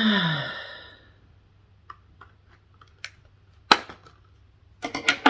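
Small cosmetics box being forced and torn open by hand: scattered sharp snaps and clicks of the cardboard and plastic packaging, the loudest about three and a half seconds in and a quick cluster near the end. A short falling groan comes at the very start.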